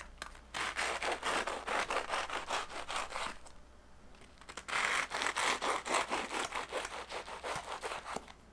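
Serrated knife sawing through the crisp cookie-crusted shells of baked choux puffs to cut off their tops: two bouts of quick back-and-forth rasping strokes with a short pause between.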